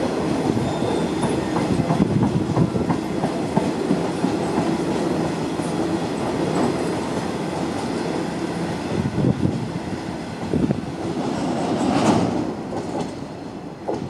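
Covered steel-coil wagons of a freight train rolling past, the wheels clattering rhythmically over the rail joints. A louder clank comes about twelve seconds in, and the clatter eases near the end as the last wagon goes by.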